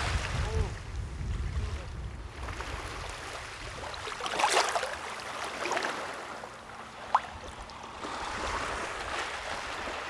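Small waves lapping on a pebble shore, and shallow water washing and splashing around a wader's feet, with wind rumbling on the microphone in the first couple of seconds. A louder splash comes about four and a half seconds in, and a single sharp click about seven seconds in.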